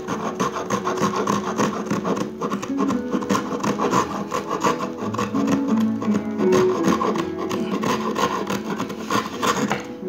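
Small multi-tool saw blade cutting through a wooden branch held in a vise, with quick back-and-forth rasping strokes.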